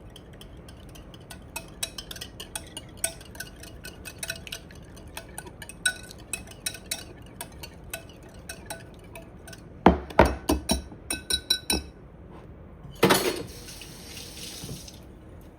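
A wire whisk beating an oil, vinegar and yogurt dressing in a bowl to emulsify it, tapping and clicking quickly against the bowl's side. About ten seconds in come a run of louder ringing knocks, then a brief rushing noise.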